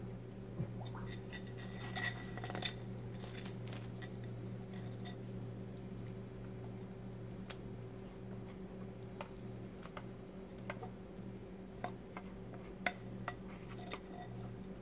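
Light scattered clinks and taps of a utensil against a bowl as shredded chicken is scraped out into a slow cooker's crock, over a faint steady low hum.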